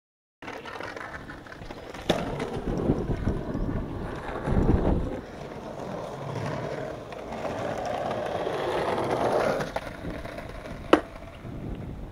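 Skateboard wheels rolling over concrete, swelling twice, with a sharp clack of the board about two seconds in and a louder one near the end.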